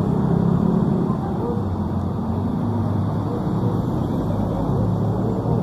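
City street traffic: cars driving past close by, a steady low engine hum and tyre noise whose pitch shifts as the vehicles pass.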